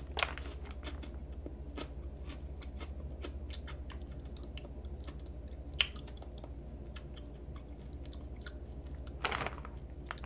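A person chewing a crunchy tube-shaped tteokbokki-flavoured rice snack close to the microphone, with scattered small crunches. A steady low hum runs underneath.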